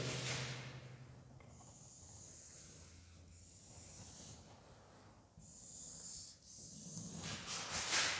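Marker pen writing on a whiteboard: a few separate short strokes about every two seconds, the last and loudest near the end.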